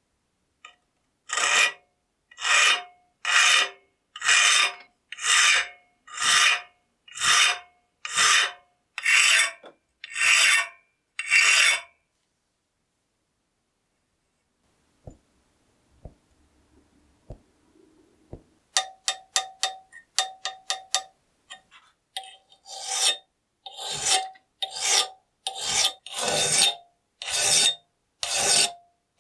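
Metal hand file scraping across the steel edge of an old chisel clamped in a vise, in long even strokes about one a second. After a pause with a few faint knocks, the filing resumes: first short quick strokes, then long strokes again.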